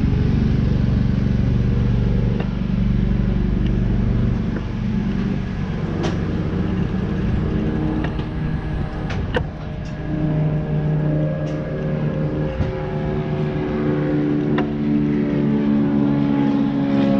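Small motorbike engine running at low speed while riding, its pitch rising and falling, with a few sharp clicks.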